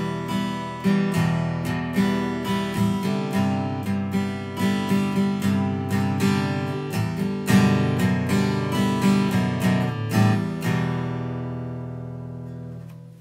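Acoustic guitar music, quick plucked and strummed chords, ending on a last chord that rings out and fades away near the end.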